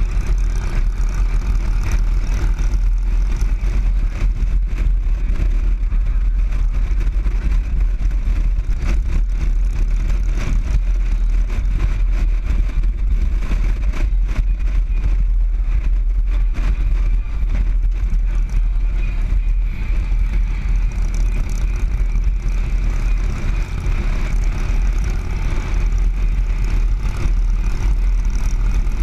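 Motorcycle riding at road speed: steady wind rush over the camera's microphone mixed with the bike's engine drone, constant throughout with no change in pace.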